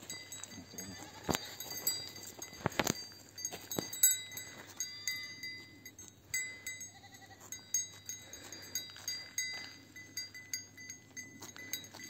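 A small goat close by, with faint bleats, a few sharp clicks and a light ringing tinkle.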